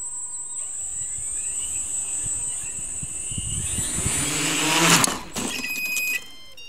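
Electric quad motors with 15-inch props on a Skywalker X8 VTOL quadplane spin up with a rising whine as it tries to lift off. About five seconds in comes a loud rush as it tips over, a sign of PID gains set too low. Short electronic beeps follow near the end.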